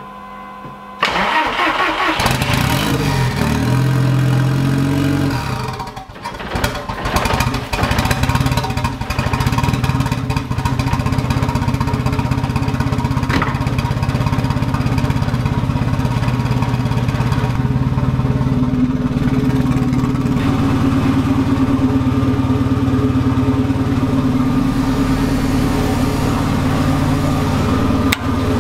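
The engine of a Volkswagen Golf Mk1 with an all-wheel-drive conversion starts about a second in. It revs for a few seconds, then settles into a steady idle.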